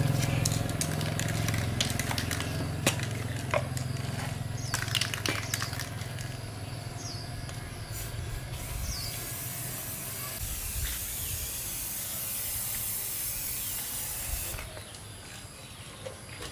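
Aerosol spray-paint can: a few seconds of scattered clicks and rattles as the can is handled and shaken, then a steady spraying hiss for about six seconds that cuts off abruptly.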